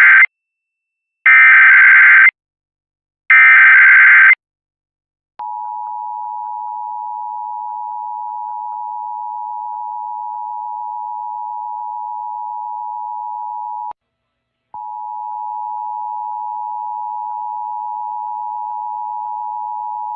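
Emergency Alert System test for a coordinated monthly test. It opens with the end of the first SAME digital header burst and then two more, each a harsh, buzzy data screech about a second long, louder than what follows. About five seconds in, the two-tone EAS attention signal starts: a steady dual tone that drops out briefly just before the middle and then resumes.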